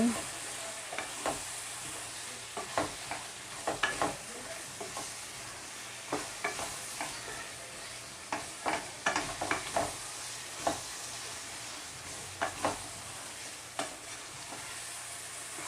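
Chicken and vegetables sizzling in a frying pan while being stirred, with a steady hiss and irregular scrapes and clacks of the stirring utensil against the pan.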